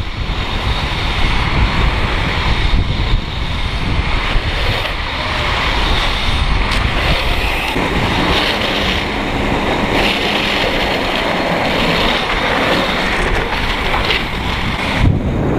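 Wind rushing over the microphone and skate wheels rolling on asphalt during a fast downhill run, a steady rumble and hiss with no break.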